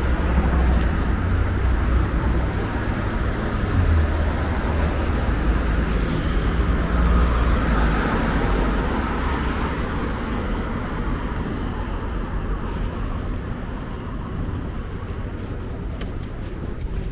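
City street traffic: a steady hum of passing vehicles with a heavy low rumble that eases about halfway through.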